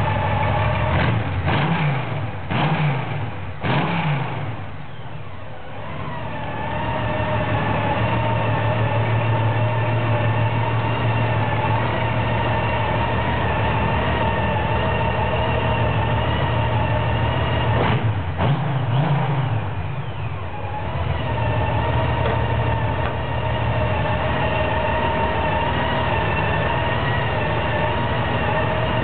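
Honda Rune's 1832 cc flat-six engine idling steadily, with three quick throttle blips in the first few seconds and two more a little past the middle.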